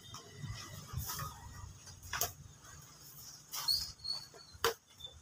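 Badminton rackets hitting a shuttlecock in a casual rally: a few sharp pops about a second apart, over a low rumble.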